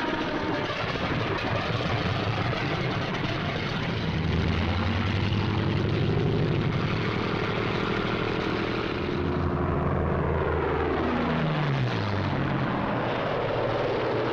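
Propeller fighter aircraft engines droning steadily, growing louder about four seconds in. Near the end, an engine note falls in pitch.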